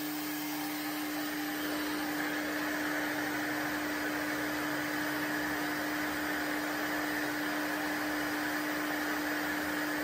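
RevAir reverse-air hair dryer running steadily: a steady motor drone with one constant hum and an airy hiss. The dryer works like a vacuum, sucking air and hair into its wand.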